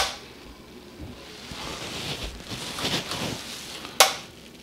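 Two sharp clicks about four seconds apart from the RCD socket's switch mechanism during an RCD trip-time test.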